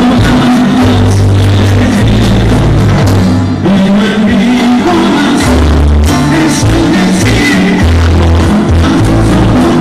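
Live music played loud through a PA: a guitar trio backed by an orchestra with strings, a steady run of bass notes under the melody, with some singing.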